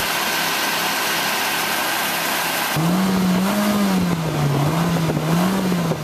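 2003 Mitsubishi Lancer's 2.0 L 4G94 four-cylinder engine running, then from about three seconds in revved high, its pitch rising and falling several times. This is the test run after new oxygen sensors were fitted to cure a rough idle.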